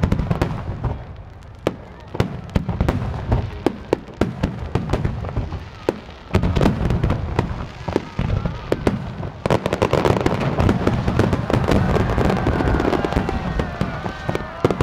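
Star mine fireworks barrage: shells bursting in quick succession, a rapid series of bangs and booms that grows into a dense crackling volley in the second half.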